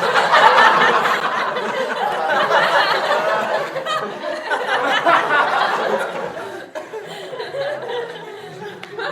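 Audience laughter from many people at once, a laugh track. It starts suddenly, is loudest for the first six seconds or so, then dies down to a lighter laugh that carries on.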